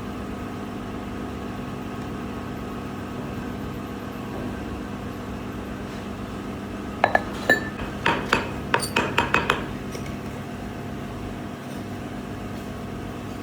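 Steady workshop machine hum with a faint held tone, and about seven seconds in a quick run of about ten sharp metallic clinks and taps with short ringing, over roughly two and a half seconds.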